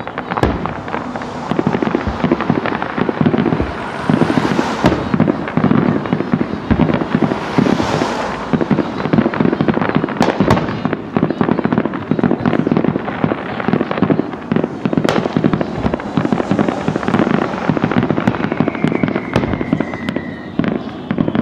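Fireworks display going off in a dense, continuous barrage of bangs and crackling, with a few sharper single bangs standing out. Near the end a thin whistle falls slightly in pitch.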